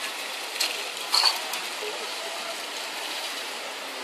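Aerosol spray-paint cans in use: light clicks and clinks, with one short loud burst about a second in, over a steady hiss.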